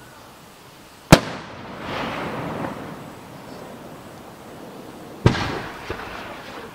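Aerial fireworks shells going off: two sharp booms about four seconds apart, each followed by a rumbling tail, with a smaller pop just after the second.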